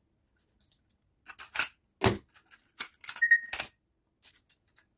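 Clear adhesive tape being peeled off the plastic underside of a diecast model car, in several short crackling rips, with a brief squeak about three seconds in.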